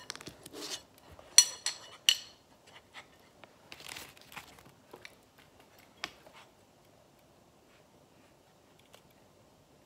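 Cold Steel Mini Flight Sport steel throwing knives being handled: two sharp metallic clinks with a short ring, a scraping rustle as they are worked into their carrying case, and a single click about six seconds in.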